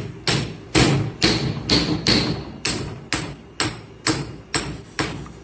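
Steady hammering: about a dozen hard blows at an even pace of roughly two a second, each dying away quickly.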